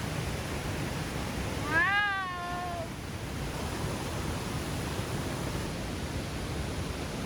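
Steady rushing of a mountain river or cascade, an even roar with no rhythm, with a drawn-out, falling 'wow' from a hiker about two seconds in.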